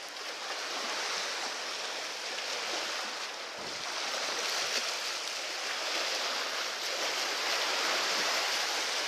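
Steady wash of sea waves.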